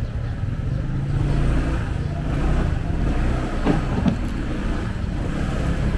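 Motorcycle engine running as the bike pulls away from a stop and rides along the street, its sound rising a little about a second in.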